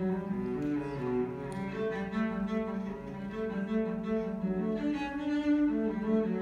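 Cello playing a melody of long, held notes.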